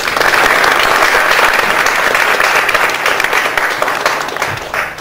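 Audience applauding, a dense patter of many hands clapping that tapers off and stops near the end.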